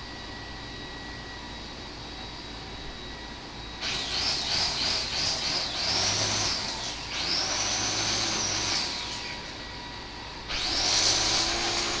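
A steady background hiss, then about four seconds in a loud high-pitched buzzing of cicadas starts. It comes in waves, each swelling and fading over a second or two, with a short lull before the last one.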